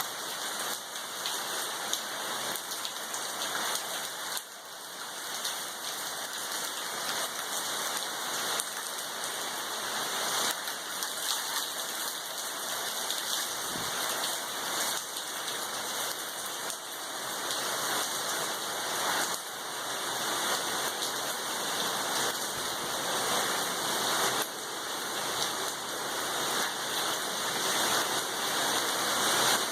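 Heavy rain pouring down in a storm: a steady hiss that swells and ebbs and grows louder toward the end.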